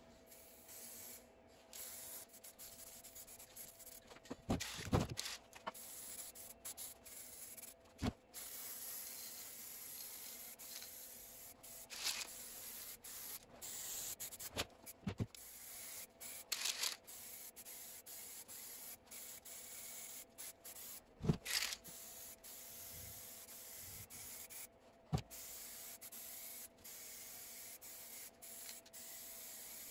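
Aerosol spray-primer can hissing in passes over a wooden chest, the hiss breaking off briefly now and then, with a few sharp knocks scattered through.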